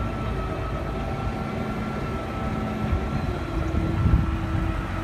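Boat engine running steadily: a low rumble with a faint, steady high whine above it, and a brief louder low thud about four seconds in.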